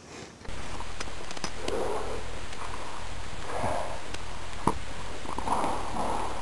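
Footsteps and movement noise over a steady hum, picked up by a small gun-mounted camera's built-in microphone; the hum comes in suddenly about half a second in, with a few sharp clicks on top.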